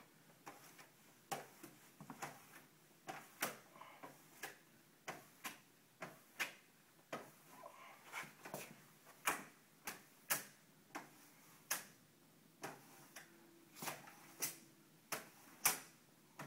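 Plastic squeegee working wet window film on a glass panel, pressing out the water and bubbles between film and glass: irregular sharp clicks and taps, one or two a second, as the tool is set down and lifted off the glass.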